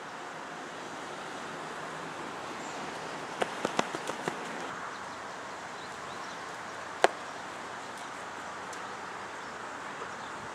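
Steady outdoor wind noise, with a quick run of several sharp clicks about three and a half seconds in. About seven seconds in comes one loud, sharp crack: a softball bat hitting the ball.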